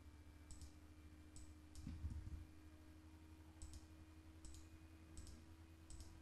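Faint computer mouse clicks, about seven spread unevenly, many heard as a quick double tick of press and release, over a low steady hum.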